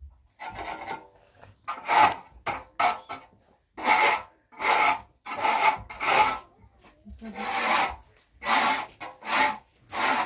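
Repeated rasping, scraping strokes by hand, about one a second and somewhat uneven in spacing.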